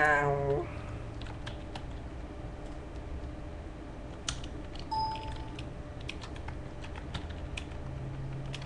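Typing on a computer keyboard: scattered, irregular key clicks, with a short tone about five seconds in.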